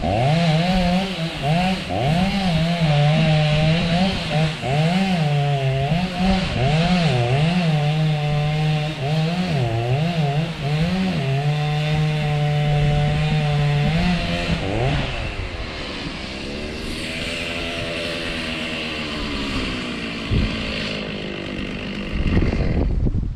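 Chainsaw cutting through the trunk of a dead pine, its engine speed rising and dipping as the chain loads up in the wood. About fifteen seconds in the engine drops off and runs lower and quieter until it cuts off suddenly at the end.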